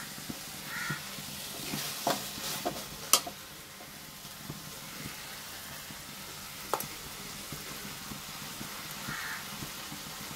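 Onions and tomatoes frying in oil in a steel kadai over a gas flame, with a soft steady sizzle. A steel spoon stirs and scrapes against the pan, making a few sharp clinks; the loudest comes about three seconds in.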